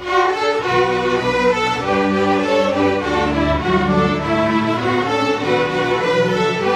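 String orchestra of violins, violas, cellos and double basses playing bowed, sustained chords, coming in loudly together at the start and holding a full sound.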